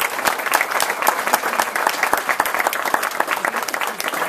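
Audience applauding, a roomful of people clapping their hands.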